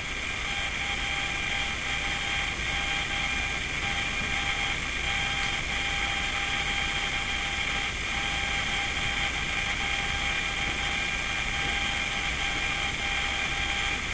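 Steady mechanical hum with a constant high whine, unchanging throughout, like a running motor or fan.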